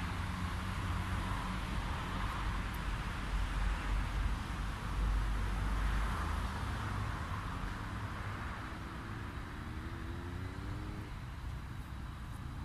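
Red tram running in the distance: a steady low rumble, loudest around the middle, with a rising motor whine in the last few seconds.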